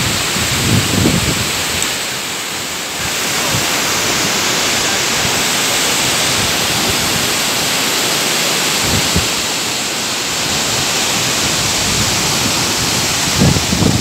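The 105-metre Laton waterfall crashing into its plunge pool makes a steady rush of falling and churning water, which grows louder about three seconds in.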